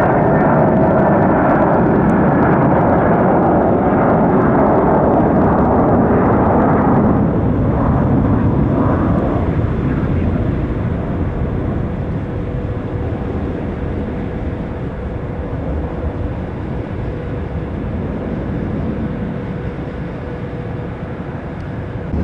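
Jet airliner passing: loud engine rumble with a whine for the first seven seconds or so, then fading to a lower, steady rumble with a faint hum.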